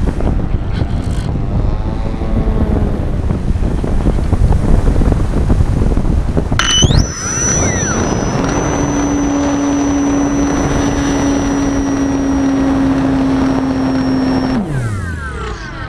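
Wind rushing over the onboard microphone of a Reichard Blizzard model glider in flight. About six and a half seconds in, its motor and propeller spin up with a quickly rising whine and run at a steady pitch for about six seconds. The motor then cuts, and the pitch falls away as the propeller winds down.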